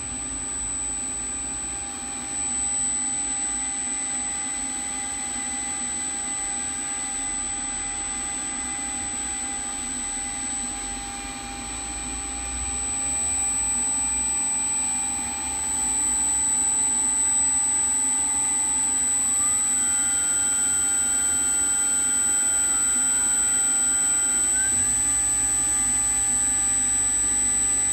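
Rexroth Indramat MHD093A-058-PG1-AA permanent-magnet servo motor running on test: a steady electrical whine and hum, with a higher whine that climbs in pitch in steps, about halfway through and again a few seconds later.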